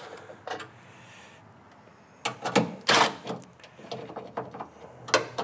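Scattered clicks and metal clunks of a cordless impact tool and the truck's radiator support brace being handled, loudest in a cluster about two to three seconds in.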